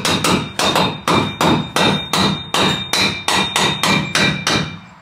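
A hammer striking metal, about three blows a second, each leaving a ringing tone, stopping shortly before the end. It sounds like a steel roll-cage tube being knocked into place in the car's shell.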